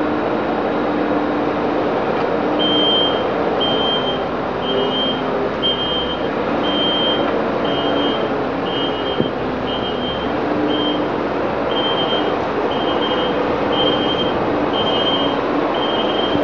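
Compact track loader's engine running steadily as it pushes manure, with a reversing alarm beeping about once a second from a few seconds in.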